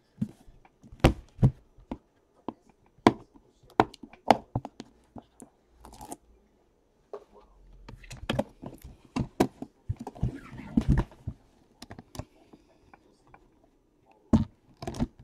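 Hands unwrapping and opening an aluminium card briefcase: irregular sharp clicks and knocks against the metal case, with plastic wrap crinkling and tearing in the middle, and two loud knocks near the end.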